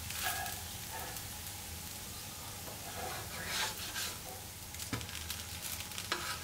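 A dosa sizzling in oil on a hot non-stick tawa, with a wooden spatula scraping under it a few times as it is loosened and folded over. There is a sharp click about five seconds in.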